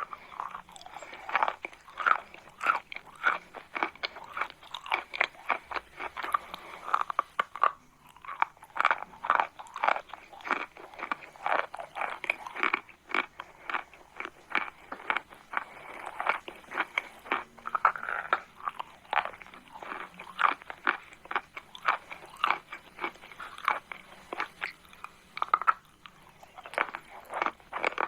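Chalk crunching and crumbling in a rapid, irregular run of crisp crackles with a few brief pauses.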